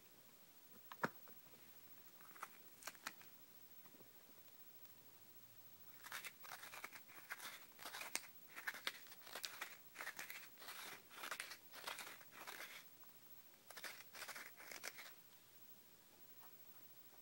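Hands working dry cannabis, making crinkly, crunchy rustling in quick bursts that start about six seconds in and run for about seven seconds, with a shorter run near the end. A single sharp click comes about a second in.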